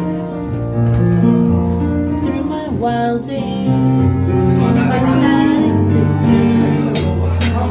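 A slow pop song playing, guitar and held notes over a moving bass line, with a woman singing along in places.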